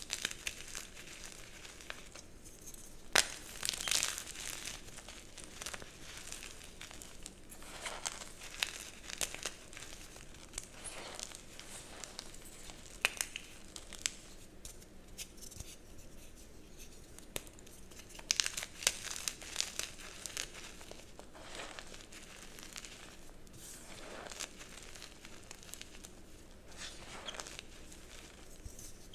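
Blocks of dyed gym chalk being crushed and crumbled: irregular runs of crunchy crackling, with a few sharp snaps.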